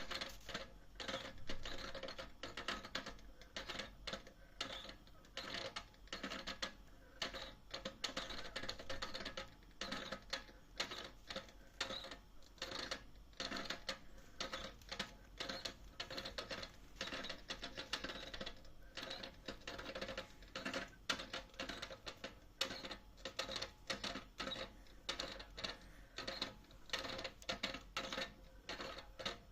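Household diaphragm gas meter chattering with rapid, irregular clicks and rattles over a faint steady hum. The owner takes it for a meter that is straining, 'tired' and crying out, under heavy winter gas flow.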